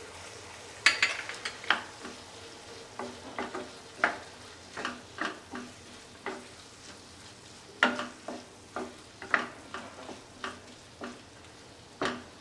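Wooden spatula stirring vegetable stuffing in a nonstick kadai, scraping and knocking against the pan in irregular strokes over a faint sizzle.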